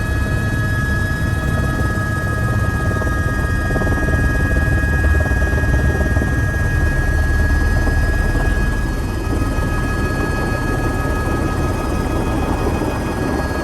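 Helicopter running close by: a fast, steady rotor chop under a constant high turbine whine.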